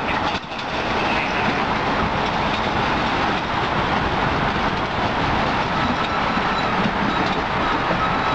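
MBTA Red Line subway train pulling in alongside the platform, its wheels on the rails making a steady loud noise. A faint whine joins in after about six seconds.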